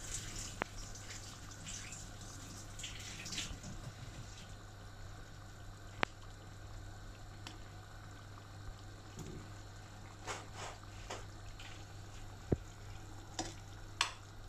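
Tomato sauce simmering in a pan, with a few sharp clicks and soft wet plops as fried eggplant slices are set into it, over a steady low hum.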